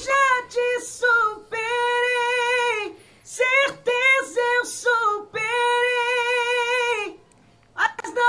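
A man singing in a very high register, with two long held notes, each followed by a short breath pause. The voice sounds high enough to pass for a woman's.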